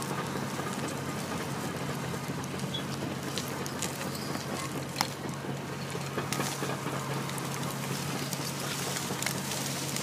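Heavy land-clearing chain dragged by bulldozers, ripping through scrub and stumps: an even crackle of breaking brush and soil with scattered sharp snaps, one loud snap about halfway through, over the steady drone of diesel engines.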